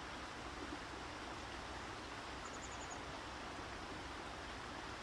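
Steady outdoor background hiss, with one short run of about six quick, very high bird chirps about two and a half seconds in.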